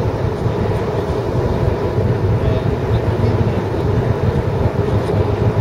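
Steady road noise heard inside a moving car: a low rumble with a hiss of tyres running on wet highway pavement.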